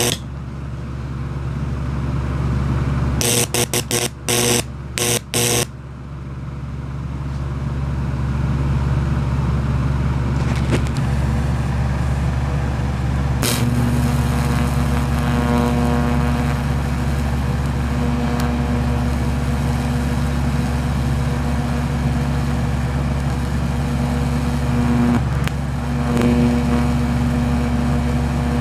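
High-voltage arc burning into a pumpkin, over a steady loud electrical hum. About three to six seconds in, a string of short sharp bursts as the arc strikes and breaks. From about halfway the arc buzzes steadily as it burns into the pumpkin's stem.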